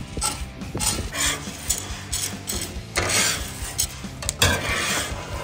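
Metal spatula scraping and pushing roasting coffee beans across the steel top of a Blackstone griddle in repeated strokes, the beans rattling against the plate. Scattered crackles come from beans in second crack.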